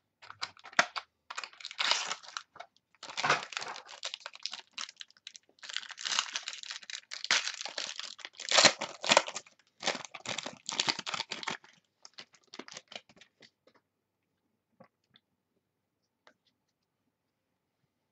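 A trading-card pack's wrapper being torn open and crinkled by hand, in uneven bursts of rustling. The rustling stops about two-thirds of the way through, and only a few faint clicks follow.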